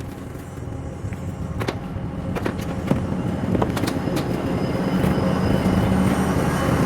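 Heavy machine engine running and growing louder, with a few sharp knocks in the first three seconds.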